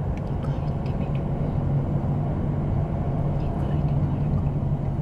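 Car moving slowly, a steady low engine and tyre rumble with a few faint ticks.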